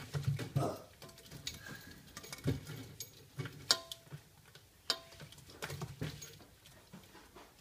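Rainbow lorikeet bathing in a shallow water dish, splashing and beating its wings in the water in irregular bursts, with a few sharp clicks.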